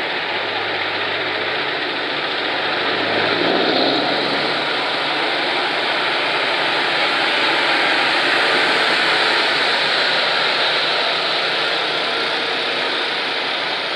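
Heavy trucks driving past, a low engine hum under a steady rushing noise, swelling a little about four seconds in and again near eight seconds.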